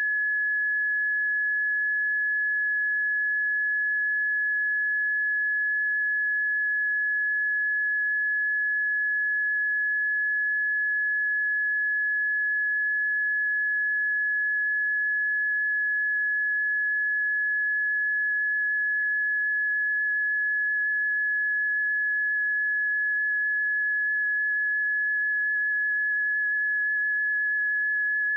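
Seismic early-warning alert tone: a single steady high-pitched sine tone holding one pitch without change, the resting state that signals no earthquake or eruption is being picked up.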